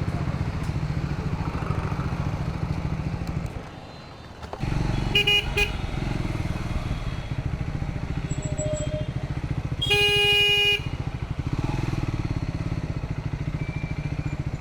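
Triumph Scrambler 400X's single-cylinder engine running while riding in city traffic, with vehicle horns honking: two short toots about five seconds in and a long, loud horn blast about ten seconds in. The engine sound dips briefly just before the first horn.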